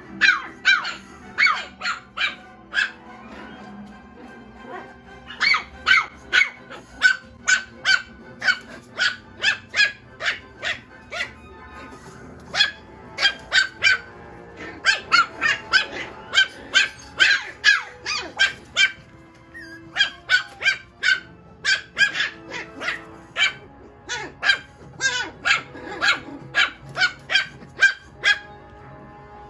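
Six-week-old Maltese–Shih Tzu (malshi) puppies yipping: runs of quick, high-pitched barks, several a second, broken by short pauses.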